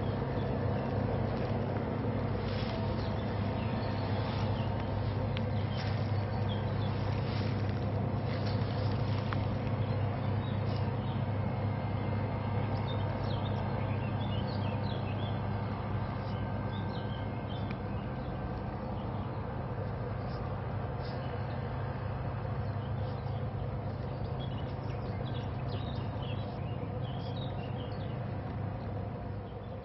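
A steady low engine-like hum that holds unchanged throughout, with short bird chirps scattered above it.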